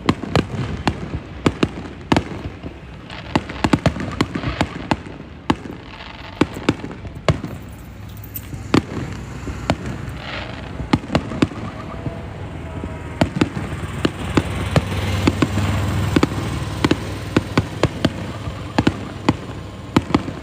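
Fireworks display: a dense, rapid barrage of sharp bangs, several a second, over a low rumble that swells about two thirds of the way through. The watchers take it for the grand finale.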